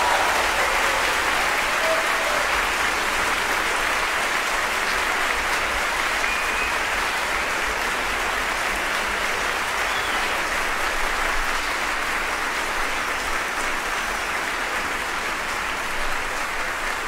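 Large concert-hall audience applauding, a dense, steady wash of clapping that holds its level throughout.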